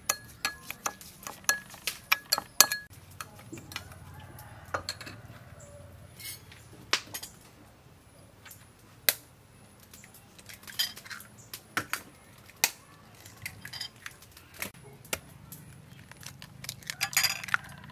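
Metal spoon clinking and scraping against ceramic bowls in many quick, irregular taps, first stirring sugar and salt into chopped chilli, then beating raw eggs.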